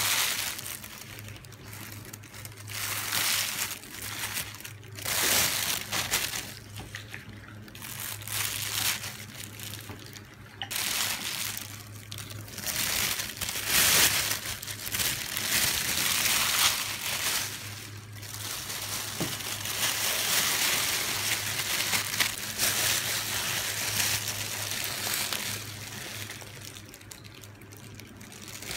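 A plastic bag and plastic glove crinkle and rustle in irregular bursts, with wet squishing, as marinated meat is packed into the bag and pressed to push out the air.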